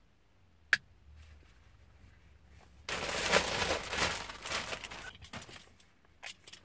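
A sharp plastic click under a second in, then about two seconds of loud crinkling and rustling of a clear plastic bag wrapped around a car radio head unit as it is handled, tailing off into scattered small clicks and taps.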